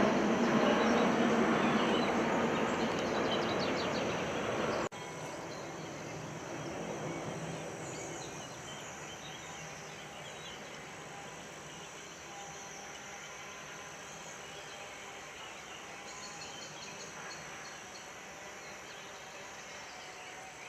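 Outdoor background noise: a broad vehicle-like noise fades away over the first five seconds and cuts off suddenly. A steady, quieter ambience follows, with faint high chirps.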